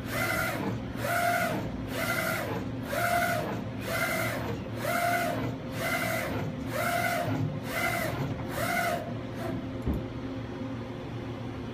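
M&R I-Image ST computer-to-screen imager with its print carriage sweeping back and forth across the screen. Each pass gives a rising-then-falling motor whine, about one and a half passes a second. The passes stop a little after nine seconds, leaving a steady low machine hum and one click.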